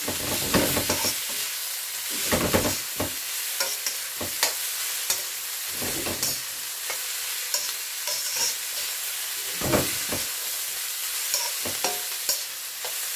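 Stir-fry vegetables sizzling in hot rapeseed oil in a wok, stirred and turned with a metal utensil that knocks and scrapes against the pan every second or two.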